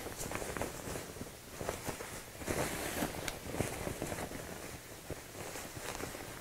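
Printed fabric rustling and scuffing as a sewn fabric dog bed is turned right side out and its corners are pushed out by hand, in irregular soft rustles.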